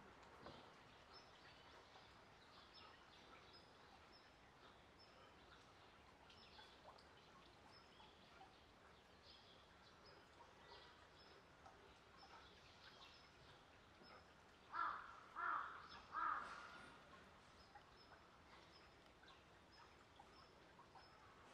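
Quiet outdoor ambience with faint bird chirps scattered throughout. About two-thirds of the way in come three short, louder calls in quick succession.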